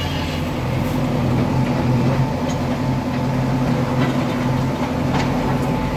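A steady mechanical drone, like an engine or motor running, holding one unchanging pitch.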